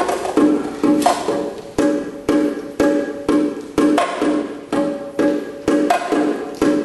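A pair of 7-inch and 9-inch bongos played by hand in a steady rhythm, about two sharp ringing strokes a second, moving between the lower-pitched and the higher-pitched drum.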